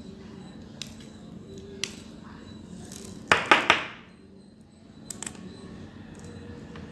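Cutting pliers snipping the excess leads off soldered resistors on a circuit board: sharp single clicks about a second apart, then a quick run of three louder snaps about three and a half seconds in.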